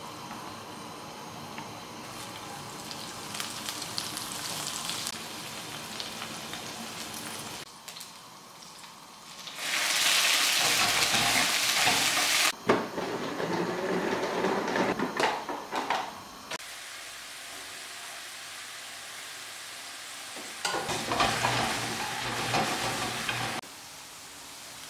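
Chopped garlic sizzling gently in olive oil in a frying pan. About ten seconds in comes a loud hissing burst of sizzling as hot pasta water is ladled into the hot oil, followed by several seconds of bubbling and frying, and a shorter burst of sizzling near the end.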